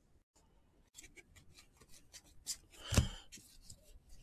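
Baseball trading cards being handled and flipped through: a run of light paper clicks and rustles, with one louder knock about three seconds in.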